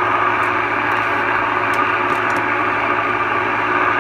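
Steady static hiss from the speaker of a Browning Mark III tube CB radio tuned to an empty channel, with a low steady hum underneath.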